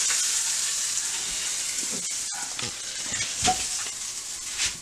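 Food sizzling in a hot frying pan: a steady hiss that slowly fades. There are a couple of light knocks in the second half.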